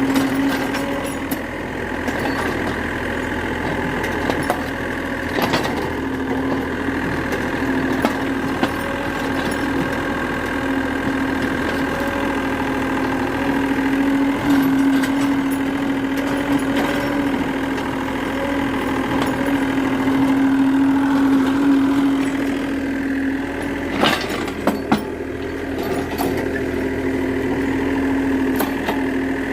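Excavator's diesel engine running steadily with a constant hum, with scattered knocks and cracks and two sharp knocks near the end.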